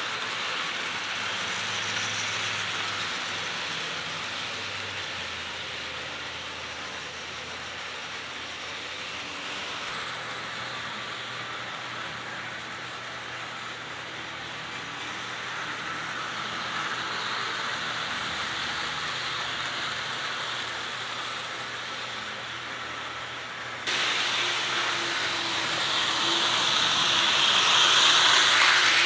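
HO scale DC-powered model trains running on track: a steady whir and rattle from the locomotive motors and wheels on the rails. The sound jumps up and grows louder over the last few seconds as a locomotive passes close.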